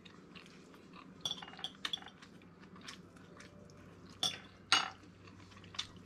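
Metal cutlery clinking against a plate and mussel shells while eating: a cluster of light clicks about a second in, then two louder, ringing clinks a little after four seconds in as a fork is set down on a small plate.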